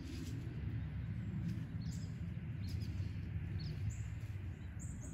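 Outdoor ambience: a steady low rumble with several short, high bird chirps scattered through it.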